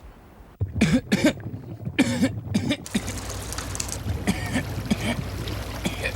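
A cartoon fish character coughing: two short fits of several coughs, about a second in and again about two seconds in, then weaker single coughs over a steady hiss.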